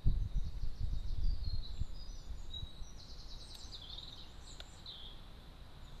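Crow pecking at seed in a plastic feeder dish, giving dull knocks over the first couple of seconds, while a small songbird sings in the background with high twittering phrases and a fast trill about three seconds in.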